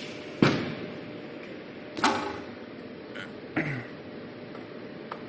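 Busbar automatic assembly line machinery knocking: three sharp metal clunks about a second and a half apart, each with a short ring, then a couple of small clicks near the end, over a steady faint hum.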